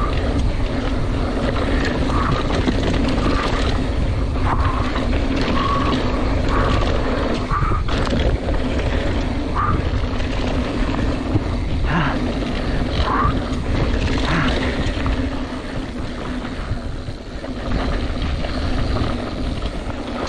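Mountain bike descending a dirt trail, recorded on a handlebar-mounted camera: continuous tyre rumble and wind on the microphone, with a steady hum, short high squeaks and a few sharp knocks. It eases in the last few seconds as the bike rolls out onto flat open ground.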